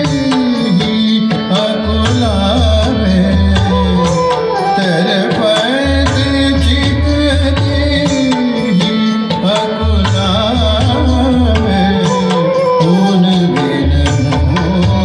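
A thumri-style devotional bhajan: a singer's voice carrying a sliding, ornamented melody over tabla accompaniment.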